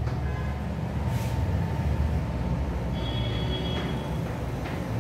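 Chalk writing on a blackboard: a few short scratches and a brief thin squeak, over a steady low room hum.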